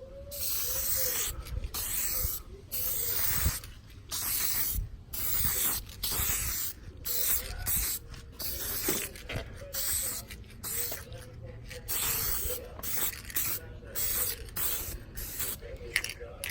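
Aerosol can of clear coat spraying in repeated short hissing bursts, each about a second long with brief pauses between, as a clear coat is laid onto a restored plastic headlight lens.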